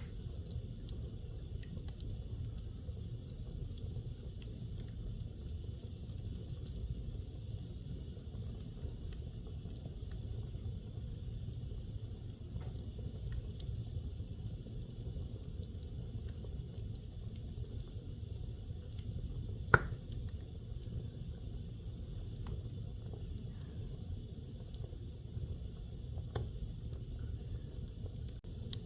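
Wood fire burning in a fireplace: a steady low rumble of flames with scattered faint crackles, and one sharp loud pop about two-thirds of the way through.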